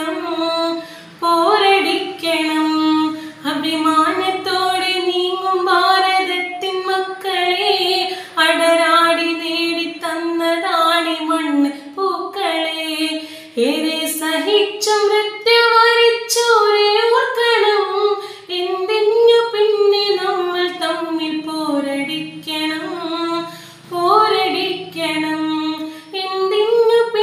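A woman singing a Malayalam patriotic Independence Day song solo and unaccompanied, in long held phrases with short breaks for breath between them.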